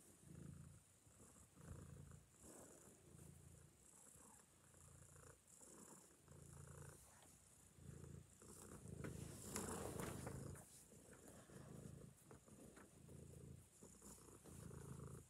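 Tabby cat purring close to the microphone, a low rumble pulsing in and out about once a second. A louder rustling noise about ten seconds in.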